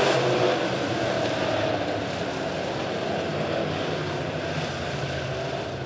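Dirt-track modified race cars running at speed around the track, their engines heard together as a steady drone.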